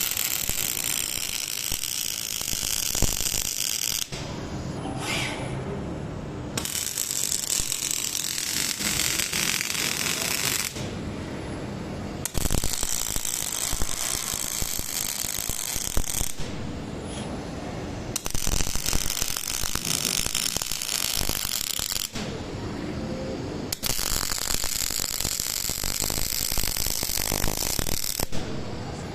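Robotic arc welding: the welding arc crackles and hisses in runs of about four seconds, broken by pauses of about two seconds between welds.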